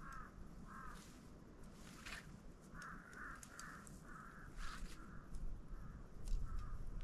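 A crow cawing repeatedly: two caws early, then a quicker run of about eight caws from about three seconds in. A few sharp clicks are mixed in.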